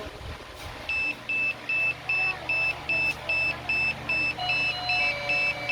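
Rapid, evenly repeating high-pitched electronic beeping, about two and a half beeps a second, starting about a second in over a steady low hum, from a DJI Mavic Pro drone setup powered up during a camera repair. Steady whining tones join the beeps near the end.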